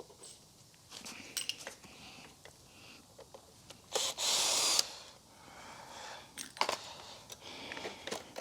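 A power drill runs in one short burst of just under a second, about halfway through, among light clicks and knocks of parts and tools being handled.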